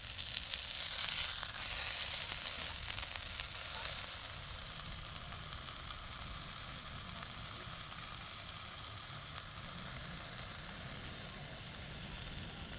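Food sizzling as it fries, a steady hiss full of fine crackling.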